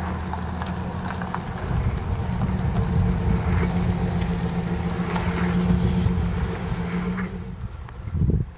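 Pickup truck engine running as it drives slowly through a parking lot, a steady low hum that swells and then fades. A brief thump near the end.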